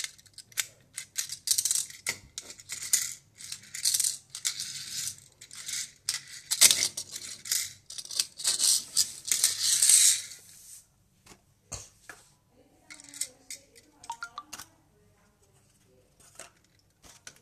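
Small die-cast toy cars handled and knocked together, rattling and clicking in quick bursts for about ten seconds, then only a few scattered clicks.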